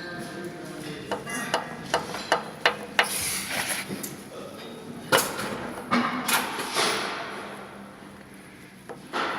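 Sharp knocks from an engine, a quick run of about six in two seconds and then a few more spread out: the knock the uploader puts down to a worn piston.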